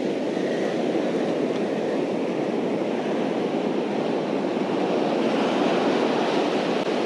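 Ocean surf washing up over the sand, a steady rush.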